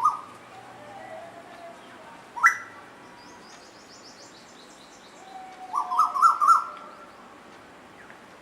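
Asian koels calling: a short call at the start, a single sharp call about two and a half seconds in, and a quick run of calls about six seconds in. Faint, high twittering runs in the background between them.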